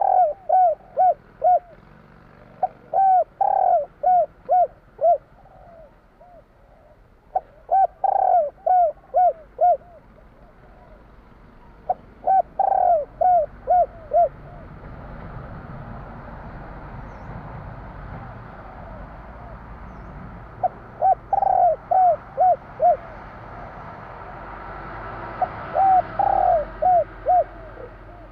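Spotted dove cooing in repeated bouts of five to seven short, arched coos, about three a second, with pauses of a few seconds between bouts. A steady background hiss grows louder in the second half.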